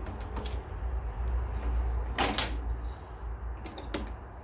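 Handling noise at a drill press vise as a freshly tapped brass fitting is taken out: a brief scrape about two seconds in, then two light metal clicks near the end, over a low steady hum.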